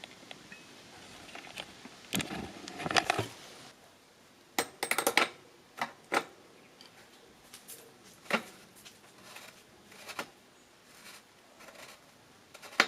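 Small metal bicycle bottom-bracket parts and tools being handled during reassembly: a rustling scrape about two seconds in, then a run of separate sharp metallic clicks and clinks, the loudest cluster a little before the middle.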